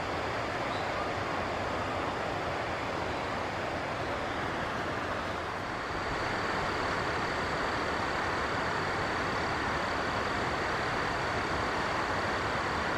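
Steady rush of flowing river water, a little louder from about six seconds in, with a faint thin high tone joining at the same point.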